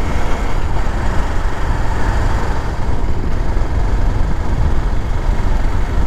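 Motorcycle riding along at speed: a steady rush of wind on the microphone, heaviest in the low end, with the engine and tyre noise blended underneath.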